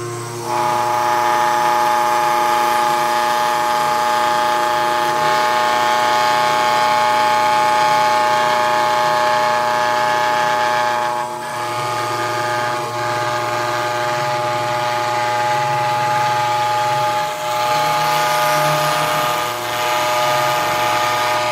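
Small CNC machine running, its motors giving a steady, many-toned whine that dips briefly a few times.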